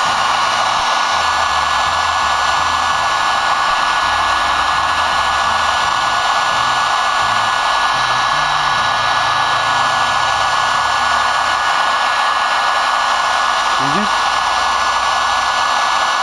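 Electric heat gun blowing steadily, heating the inside of a tight heated handlebar grip so it will slide onto the bar.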